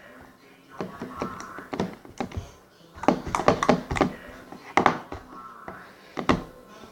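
Sticky slime being kneaded and squished by hand while something is worked in to make it less sticky, giving an irregular run of wet clicks and pops.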